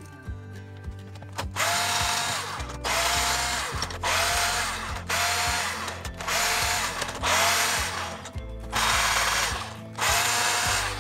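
Cordless drill driving a socket on a Briggs & Stratton engine's cylinder head bolts, backing them out. It runs in about eight short bursts of about a second each, starting about a second and a half in. Each burst has a whine that rises as the motor spins up and drops as it stops.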